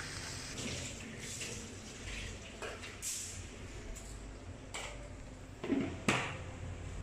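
Metal spatula scraping and knocking against a metal wok as crab pieces in thick sauce are stirred, with two louder knocks near the end.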